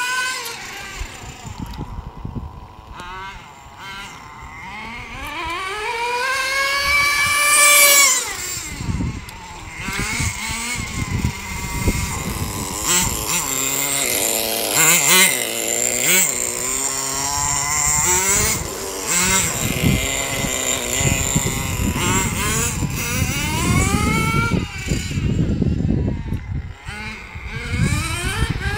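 HotBodies Lightning Stadium Pro 1/10 nitro stadium truck's 2.5cc engine running hard, its high-pitched note rising and falling again and again as the throttle opens and closes, loudest about eight seconds in.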